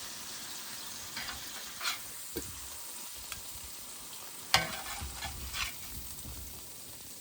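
Fish pieces frying in butter in a pan, sizzling steadily. A few sharp clicks and knocks from a utensil or plate sound over it, the loudest about four and a half seconds in.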